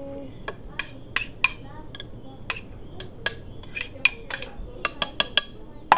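Sharp, irregular clinks and taps of a utensil against a bowl, about three a second, each with a short ring, as the bowl's contents are scraped out into a blender jar.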